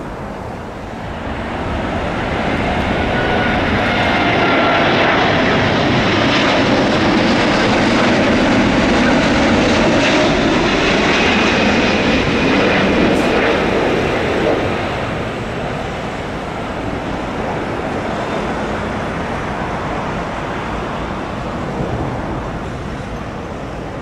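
Jet airliner flying past as it comes in to land. The engine noise swells over a few seconds, holds loud for about ten seconds with whining tones that slowly fall in pitch, then eases off to a lower steady rumble.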